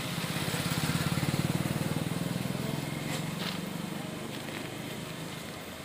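Motorcycle engine passing by, growing louder to about a second and a half in and then fading away.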